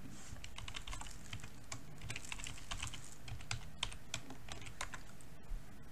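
Computer keyboard being typed on: quick runs of key clicks as a username and password are entered, thinning to a few single key presses in the last couple of seconds.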